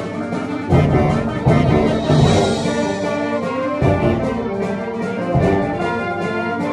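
Clarinet and bass clarinet playing a concert-band piece, with a full band accompaniment that includes percussion strikes and heavy low notes under them.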